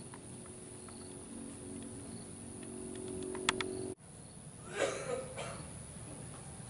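Outdoor ambience with faint insect chirps about once a second and a steady low hum that cuts off abruptly about four seconds in, followed a second later by a short noisy burst.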